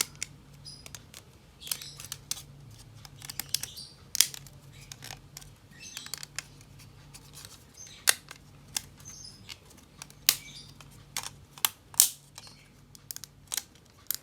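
Plastic shell parts of a Tecware Exo Plus gaming mouse being handled and fitted back together: irregular sharp clicks and taps, a few louder snaps, with brief light scraping.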